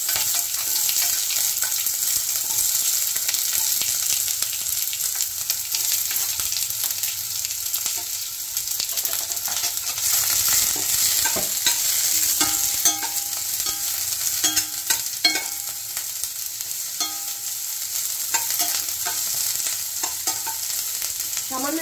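Chopped onion and garlic sizzling steadily in hot sunflower oil in a frying pan while being stirred, with scattered clicks and scrapes of the stirring utensil on the pan, most of them from about halfway through.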